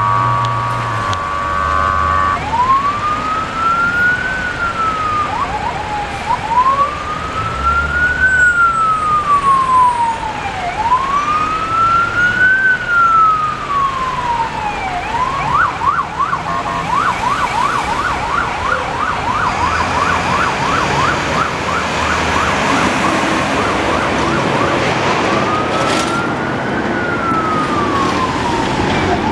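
Ambulance siren in traffic. It opens with a short steady horn blast, then runs a slow rising-and-falling wail, switches at about the midpoint to a fast yelp, and goes back to the wail near the end.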